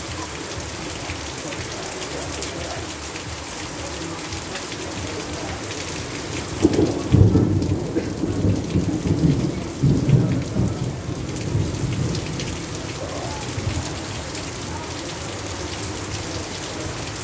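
Heavy rain falling steadily. About seven seconds in, a rumble of thunder swells, rolls irregularly and dies away over about five seconds.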